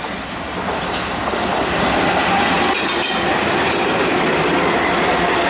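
Norfolk Southern GE ES44DC diesel locomotive leading a double-stack container train slowly past, its engine and steel wheels on the rails getting louder over the first couple of seconds as it draws level, then holding steady. A few sharp clicks from the wheels on the rail come in the first two seconds.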